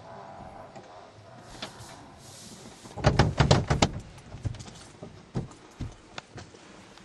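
Car door rattling and knocking in a quick burst of about half a dozen sharp clicks about three seconds in, followed by a few fainter knocks.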